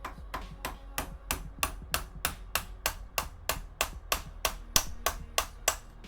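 Hammer blows on a cordless drill's metal chuck and gearbox, about three a second and getting louder over the run. The blows shock the reverse-threaded parts loose.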